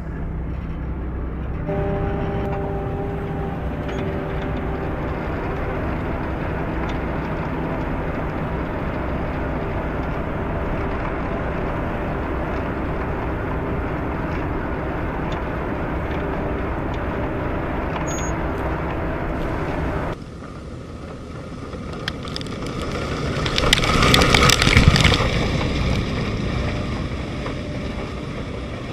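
Self-propelled potato harvester running steadily, a dense machine noise with a faint engine hum. About two-thirds through it cuts to a quieter machine sound that swells up loudly and then fades.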